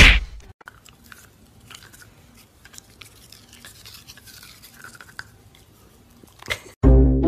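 A dachshund chewing on a toothbrush held in its mouth: faint, scratchy brushing and chewing sounds. A short loud sound comes at the very start, and loud music cuts in near the end.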